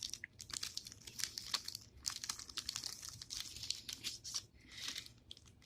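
Small package crinkling and rustling in the hands, with irregular sharp crackles.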